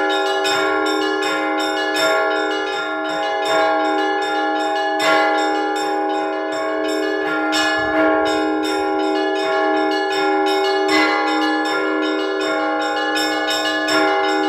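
Russian Orthodox church bells rung by a single bell ringer for Sunday service, calling parishioners to prayer. Smaller bells are struck several times a second in a steady pattern, and a heavier stroke comes about every second and a half, all ringing on over one another.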